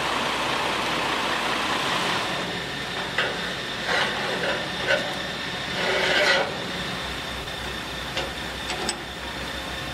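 A heavy truck's diesel engine idling, with a loud hiss for the first two seconds or so. Then come several sharp metallic clanks and rattles, the last and longest about six seconds in, and a few lighter ticks near the end.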